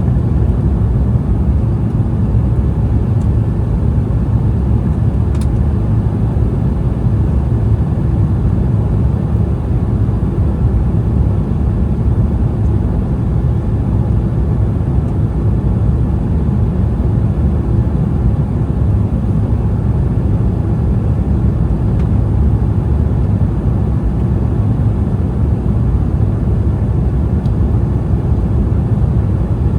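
Steady low rumble of engine and airflow noise heard inside the cabin of an Embraer E175 regional jet in flight.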